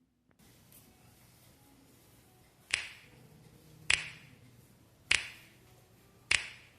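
Four finger snaps, evenly spaced a little over a second apart, each with a short ringing tail, keeping the beat at the start of a pop song.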